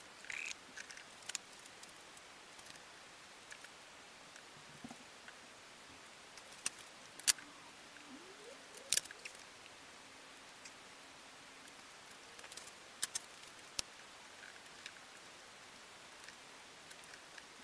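Scattered sharp metal clicks and clinks of a mechanical fuel pump being handled and fitted onto the side of a Skoda 105 engine block, over a faint steady hiss. The sharpest clicks come about seven and nine seconds in, with a quick cluster around thirteen seconds.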